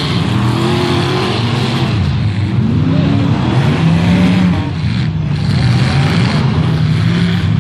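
Several derby cars' engines running and revving on a dirt track, their pitches rising and falling as they accelerate and ease off.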